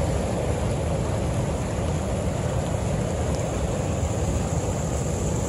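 Pacific Ocean surf breaking and washing in at high tide, a steady rush of waves, with wind rumbling on the phone's microphone.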